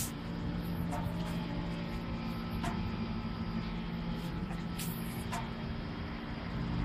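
Steady low electrical hum over background room noise, with a few faint clicks.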